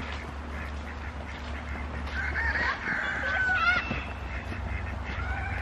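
Geese honking, a run of short calls about two to four seconds in and more near the end, over a low steady rumble.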